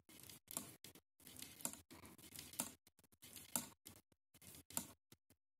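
Faint ticks and rustles of knitting needles and yarn as knit stitches are worked one after another, coming irregularly about twice a second.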